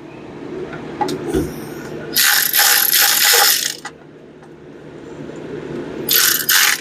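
Hand ratchet wrench clicking as a fastener is turned down, in two runs: a longer one of about a second and a half, and a shorter one near the end, with a couple of light knocks before.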